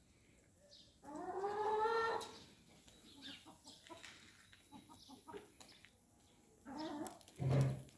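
Domestic hens calling: one long drawn-out call rising in pitch about a second in, then a few short soft clucks, and another short call near the end.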